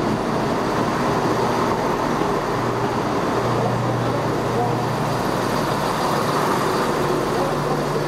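Chiltern Railways Class 168 diesel multiple unit moving along the platform, its underfloor diesel engines and wheels on the rails making a steady noise, with a low engine hum that swells for a couple of seconds midway.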